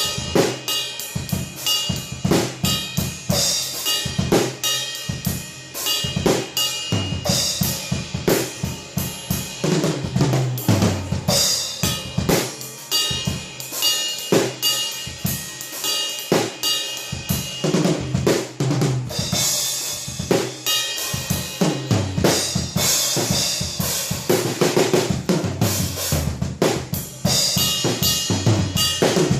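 Acoustic drum kit played in a fast, busy groove, with snare, bass drum and cymbals struck without a break, the drums dampened with Moongel gel pads. Cymbal crashes build up about two thirds of the way through and again near the end.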